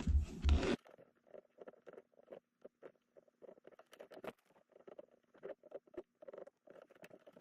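Faint, irregular crackling and tiny pops of flux and solder sizzling as a soldering iron tins the pads of a drone ESC. A low hum cuts off suddenly under a second in.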